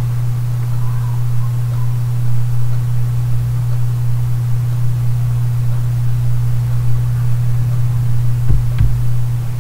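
Steady low hum with a faint hiss behind it, and a couple of faint clicks near the end.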